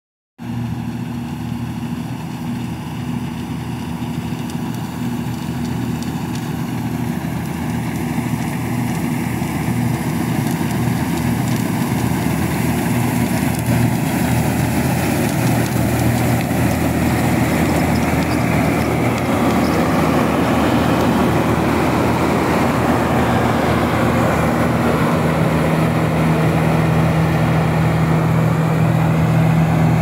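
Combine harvester running while cutting wheat: a steady engine hum under a broad rushing noise from the cutting and threshing works, growing gradually louder.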